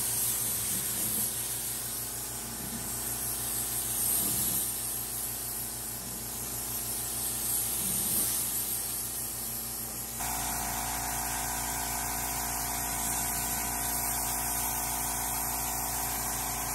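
Gravity-feed air spray gun hissing steadily as it sprays paint onto a truck tailgate. About ten seconds in the sound cuts to a steady mechanical hum with the hiss fainter over it.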